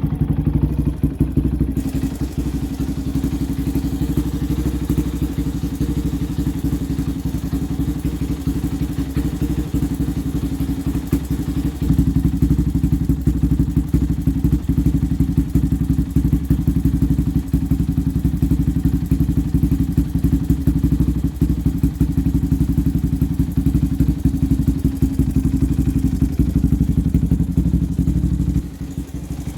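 Yamaha Raptor 700 ATV's single-cylinder four-stroke engine idling with a rapid, uneven firing pulse, a little louder about twelve seconds in and dropping off just before the end. The idle is rough ('kind of funny'), which the owner puts down to other modifications and the need for a new tune.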